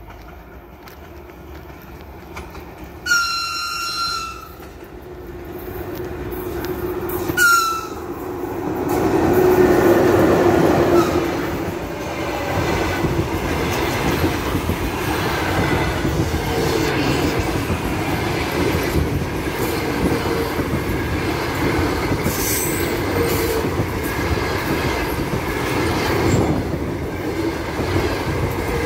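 Locomotive-hauled passenger train passing a platform at speed: the locomotive's horn sounds twice, a longer blast about three seconds in and a short one about seven seconds in, then the train arrives and its wheels rumble and clatter over the rails, loudest as the locomotive goes by, and stay steady as the carriages pass.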